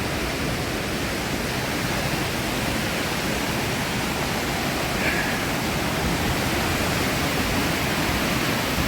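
Mountain river rushing steadily down a drop of about ten feet, a constant hiss of falling white water.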